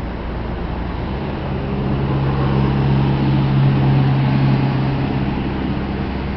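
A motor vehicle's engine hum over a steady low rumble, swelling for a few seconds and then fading.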